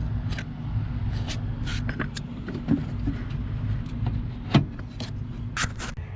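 Scattered light clicks and knocks from handling parts at the brake pedal while fitting the brake light switch and its clip, with one sharper knock about four and a half seconds in, over a steady low hum.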